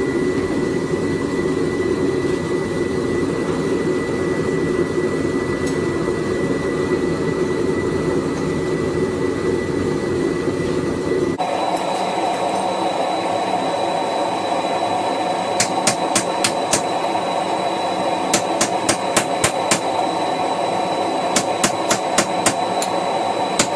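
Hammer striking a chisel cutting into a hot railroad spike, in several quick runs of blows in the second half, over a steady drone of the forge.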